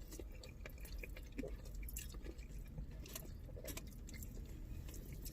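Close-up eating sounds of fried chicken being bitten and chewed: soft, scattered wet clicks and smacks over a low hum.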